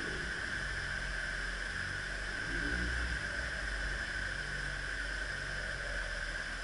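Steady rush of water spilling through canal lock gates, with a low engine rumble running beneath it.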